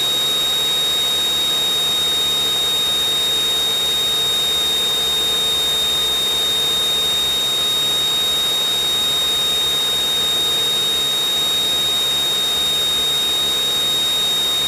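Steady in-flight engine and cabin noise of a Cessna 172 Skyhawk, an even hiss with a constant high-pitched whine running through it.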